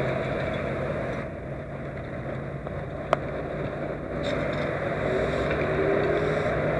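Steady low rumble of idling vehicle engines, with a single sharp click about three seconds in.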